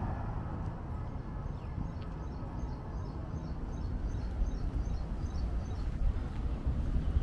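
City street ambience: a steady low traffic rumble, with a faint run of short high chirps repeated several times a second from about a second in for a few seconds.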